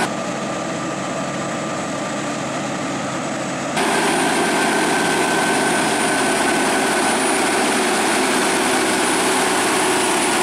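Scania R580's V8 diesel engine running steadily as the heavily laden truck, hauling an excavator on a lowboy trailer, pulls slowly past. Quieter for the first four seconds, then suddenly louder.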